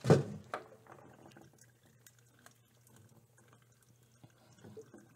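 Two knocks at the start, the first the loudest sound here, then water running faintly from a bottled-water cooler into a metal mug.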